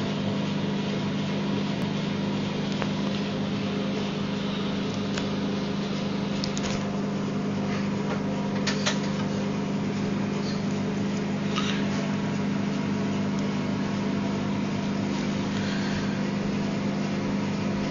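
A steady low mechanical hum, like an appliance motor running, with a few faint ticks here and there.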